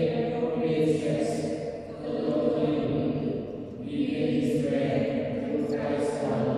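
Liturgical chant: a voice singing a prayer on long held notes, moving from note to note every second or so, with hissing consonants between phrases.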